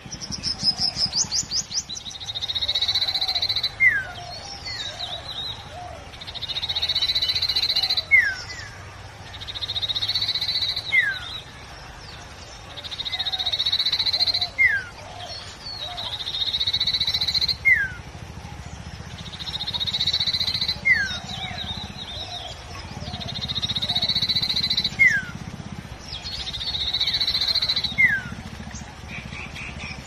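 A songbird singing the same short song over and over, about every three and a half seconds: a high buzzy trill followed by a sharp falling note. It opens with a quick run of higher chirps.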